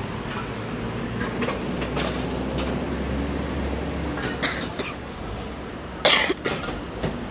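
Steady low rumble of street traffic, with scattered small knocks. One loud, short cough about six seconds in.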